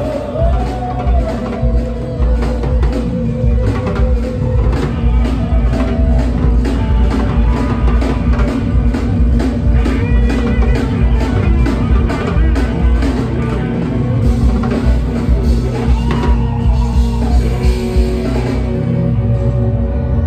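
Live band playing through a stage sound system: electric guitar and a drum kit keeping a steady beat, with held chords sustained underneath.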